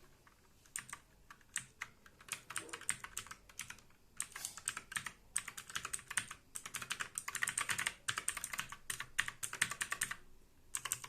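Walton KM02 mechanical keyboard's blue switches clicking as keys are pressed in quick runs, one after another, while each key is tested. The clicking pauses briefly near the end, then a few more keys are pressed.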